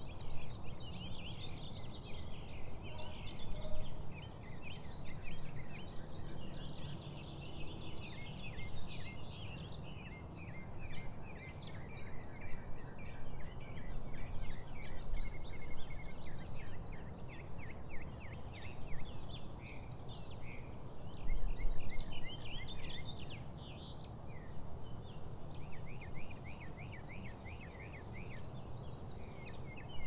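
A chorus of wild songbirds chirping and trilling continuously, several birds overlapping, over a low steady rumble. About a third of the way in, one bird repeats a high clear note about seven times in a row.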